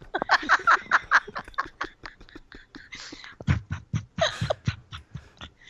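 A woman's vocal sound effects: a fast, rhythmic run of short mouth and voice sounds, about six a second, louder near the start and again about three and a half seconds in.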